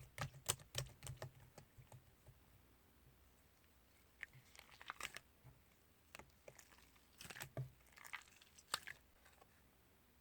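Slime being squished and poked by hand, giving sharp wet clicks and small crackly pops in bunches: a quick run of clicks at the start, then two crackling clusters, one around the middle and one near the end.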